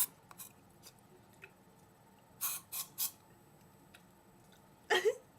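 A person reacting to a swallow of cough syrup: mostly quiet, with three short breathy bursts about halfway through and a brief voiced grunt near the end.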